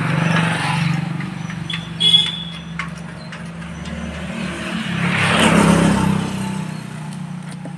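A motor vehicle engine running steadily, with a vehicle passing by, swelling and fading, about five to six seconds in. A brief high metallic ring about two seconds in.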